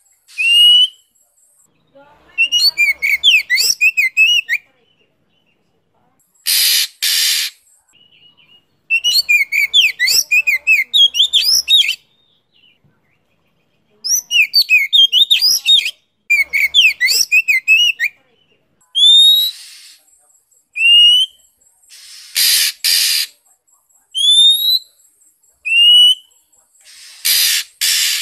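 Oriental magpie-robin song as a lure recording. Runs of fast, varied warbling phrases alternate with single rising whistles and pairs of short harsh rasping notes. This is the kind of recording played to rouse other magpie-robins to sing.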